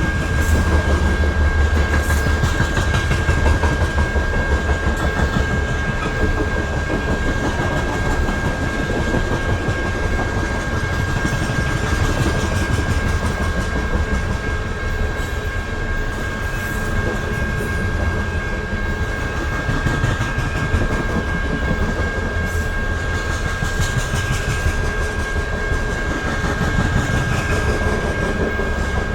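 BNSF coal train's cars rolling past, a steady rumble with wheels clacking over the rail joints and a steady high-pitched tone running through it. The low rumble is heaviest in the first few seconds.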